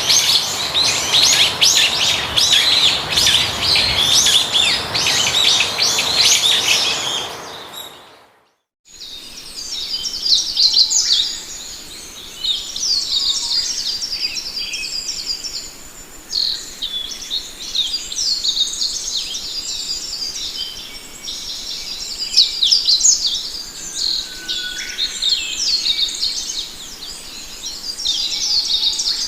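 A chorus of small songbirds chirping and singing in quick, high notes. About eight seconds in it fades out for a moment, then a different, thinner chorus of chirps and trills starts up, with now and then a lower whistle.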